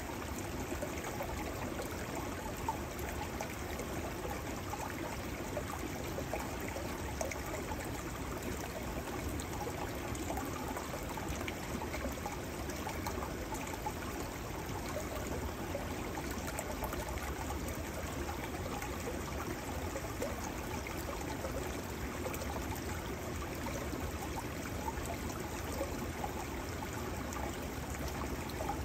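Shallow snowmelt stream flowing steadily over its bed between banks of shelf ice, a continuous even rush of moving water with fine trickling detail.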